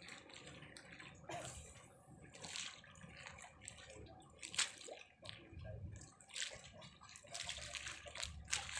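Small sea waves lapping and splashing against a concrete pier wall, in faint irregular splashes.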